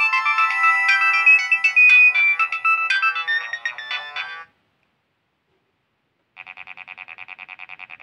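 Nokia 1209 mobile phone playing ringtone previews through its small loudspeaker. A busy electronic melody with several notes at once cuts off suddenly a little past halfway. After a short silence a different ringtone starts as a fast, evenly pulsing tone.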